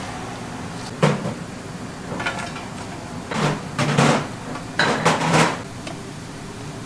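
Kitchen clatter: dishes and containers knocked and set down in a handful of sharp clacks, one about a second in and a quick cluster in the middle, over a steady background hum.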